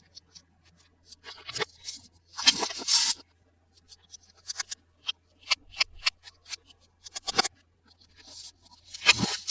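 Toy packaging being handled and opened by hand: a run of sharp clicks and taps with a few short crinkling scrapes, the loudest about two and a half seconds in and again near the end.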